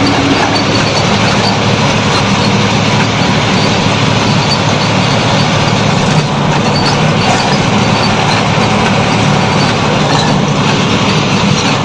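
Steady engine and road noise heard inside a moving truck's cab, cruising at about 60 km/h.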